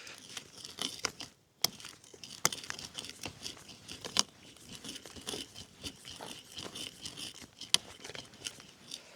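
Hand drill boring a one-inch hole into a frozen tulip poplar log: a continuous rasping of the bit cutting the wood, broken by frequent sharp cracks and snaps.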